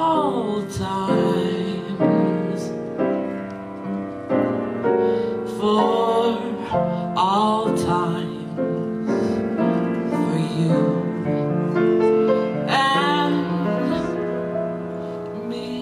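A woman singing a cabaret ballad with piano accompaniment, her voice gliding between held notes.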